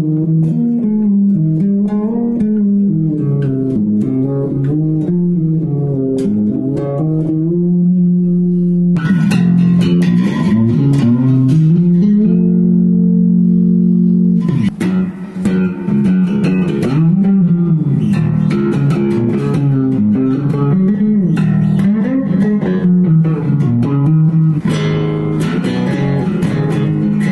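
Electric bass with some of its frets removed, played through a small 15-watt Vox guitar amp set with little gain and a bit of reverb: a moving bass line, with a long held note a little before halfway.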